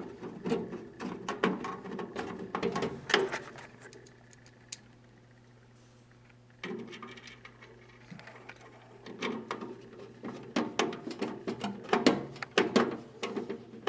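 Phillips screwdriver driving the fastening screws down into the metal brush plate of a candy vending machine: repeated small metallic clicks and scrapes, with a quiet pause of a few seconds about midway before the clicking resumes.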